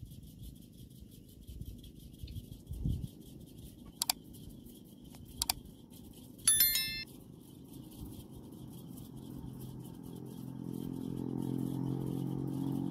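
Two mouse clicks about four and five and a half seconds in, then a short bright bell chime: the sound effect of a like-and-subscribe button animation. Under it, a low engine hum grows louder over the last few seconds.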